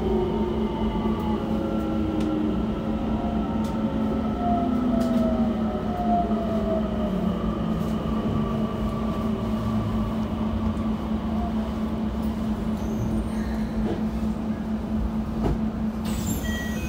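Keikyu 1000-series train running on Toshiba IGBT-VVVF control: the inverter's whine falls in pitch as the train slows, over a steady low hum and rail noise. A brief high squeal near the end.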